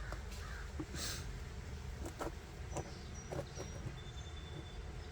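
Crows cawing in the background, over a string of short clicks and knocks.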